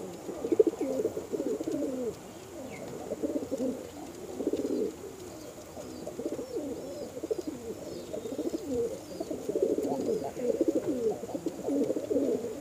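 Domestic pigeons cooing: low, wavering coos in a run of phrases with short pauses between them.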